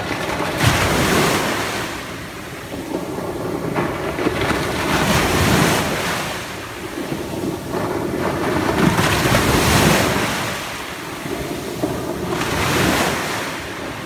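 Small sea waves breaking and washing up a coarse sand and pebble beach. Each wave swells into a rushing hiss and fades, about four times, roughly every four seconds.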